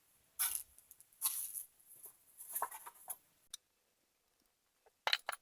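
Small metal assembly hardware (bolts, flat washers and nuts) being handled and fitted: a few short rattles and scrapes, and one sharp click about three and a half seconds in.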